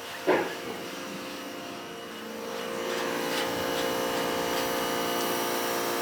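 A short knock just after the start. Then an electric fan's motor starts up about two and a half seconds in, building to a steady whirring drone.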